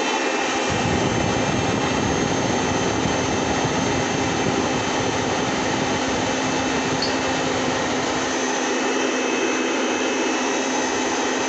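Handheld electric air blower running steadily with a whine, blowing air through a narrow plastic nozzle to inflate a latex balloon. A deeper layer joins under a second in and drops away after about eight seconds.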